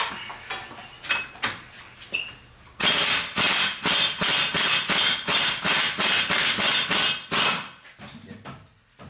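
Pneumatic impact wrench hammering in a loud run of rapid pulses for about four and a half seconds, starting about three seconds in, as it undoes the clutch nut. A few light tool clicks come before it.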